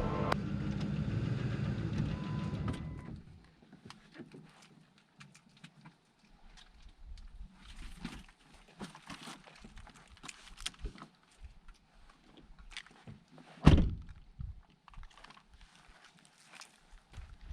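Electronic intro music fading out over the first three seconds, then faint scattered clicks and knocks, with one louder thump about fourteen seconds in.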